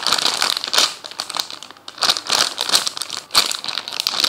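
Clear plastic packaging bag of a squishy toy crinkling as it is handled, in irregular crackly rustles with a brief lull a little under two seconds in.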